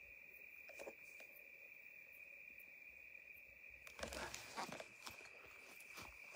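Crickets trilling steadily at one high pitch. About four seconds in, footsteps crunch and rustle on dry ground and brush.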